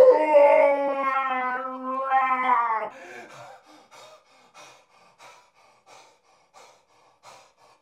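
A man's loud, anguished wail, held for about three seconds, then breaking into a string of short, quieter gasping sobs, about one and a half a second.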